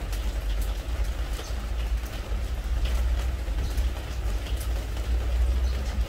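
Spring rain falling on a pressure-treated wood deck: a steady patter with scattered individual drop ticks. A steady low rumble runs underneath and is the loudest part.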